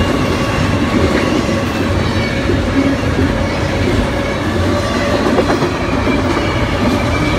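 CN double-stack intermodal container train rolling past at close range: a steady, loud rumble and rattle of steel wheels on the rails.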